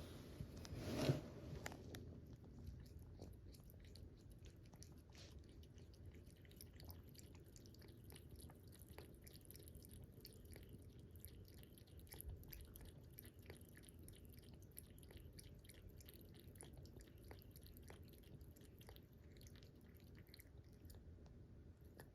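A cat lapping water: a quick, faint run of small wet ticks, with one louder knock about a second in.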